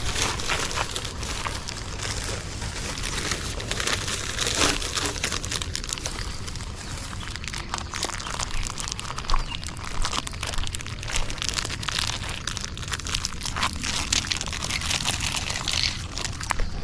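Stray dogs eating dry biscuits: a dense, irregular crunching and crackling of chewing that carries on throughout.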